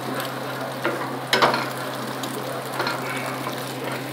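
Scrambled egg and onion sizzling in hot oil in a frying pan, with a wooden spatula scraping and knocking against the pan a few times, the strongest stroke about a second and a half in.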